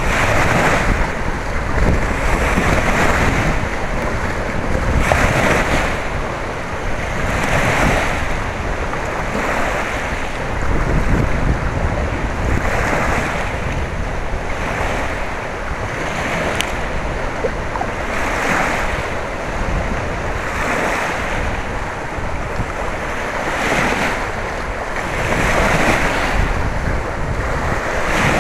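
Wind-driven waves on a choppy lake washing in about every two to three seconds. Gusty wind rumbles on the microphone throughout.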